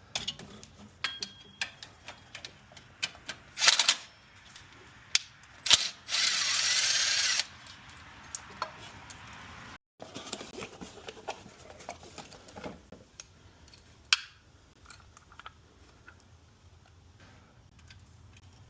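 Tools and metal parts clicking and knocking during engine-bay work, with a power tool running in one steady burst of about a second and a half, about six seconds in.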